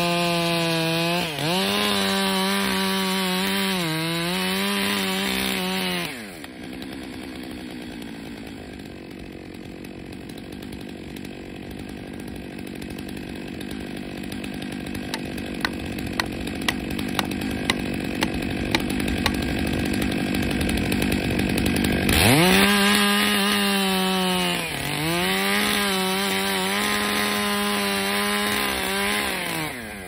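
Chainsaw cutting into a tree trunk at full throttle, its pitch dipping as it bogs under load, then dropping to a quiet idle about six seconds in. A quick run of sharp taps comes in the middle, and the saw revs back up and cuts again for several seconds before letting off near the end.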